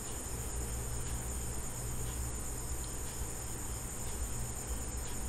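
Steady background noise with no events: a constant high-pitched whine over hiss and a low hum.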